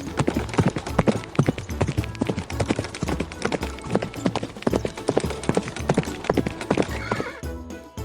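Horse galloping: a fast, uneven clatter of hoofbeats, with a short horse whinny near the end.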